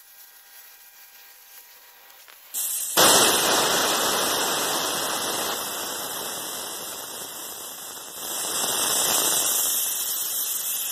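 Air hissing out of a trailer tire's open valve stem with the valve core removed, as the tire deflates. The hiss starts suddenly a little under three seconds in after a quiet start, then runs on steadily, easing a little and swelling again near the end.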